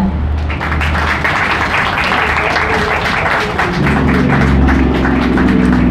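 Small group applauding with hand claps, the clapping thinning out over the last couple of seconds.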